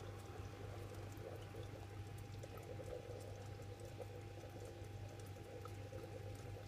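Faint steady hum of running aquarium equipment, with a soft bubbling and trickling of water and a few small ticks.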